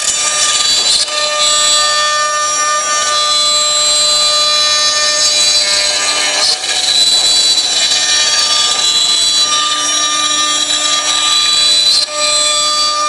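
CNC router spindle running at speed with a steady multi-pitched whine, its bit cutting into wood with a hissing rasp of chips. The sound dips briefly about a second in, around the middle and near the end.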